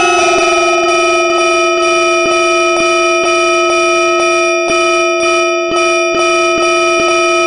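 Sped-up music: one note held steady under a regular light tick about twice a second.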